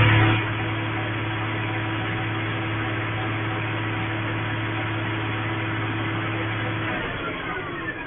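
A machine running with a steady low hum, which stops about seven seconds in.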